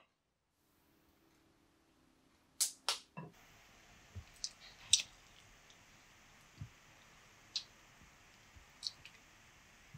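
Metal cutlery clicking and tapping against a dish: scattered short sharp clicks, a quick pair about two and a half seconds in and single ones every second or so after, over a faint hum.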